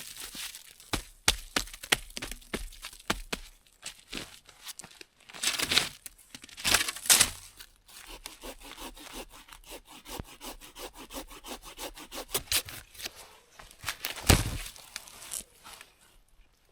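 Wood being broken up for firewood: many sharp cracks and snaps of dry branches and twigs, with a few longer scraping, rasping bursts about five seconds in, again a second later, and near the end.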